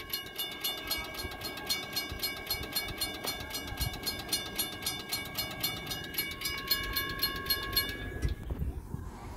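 Railroad crossing warning bells ringing in a fast, even rhythm of several strikes a second over a steady ringing tone, then cutting off near the end. This is a false activation: the crossing has tripped with no train present.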